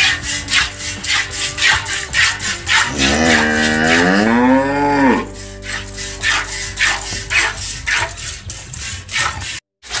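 Hand-milking a cow into a steel bucket: milk streams squirt into the pail in a steady rhythm, about three squirts a second. About three seconds in, one long moo rises and then falls in pitch.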